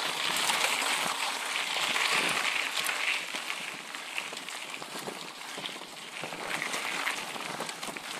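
Mountain bike rolling fast over a loose, rocky dirt trail: tyres crunching on gravel with many small clicks and rattles from the bike, louder for the first three seconds or so, then easing off.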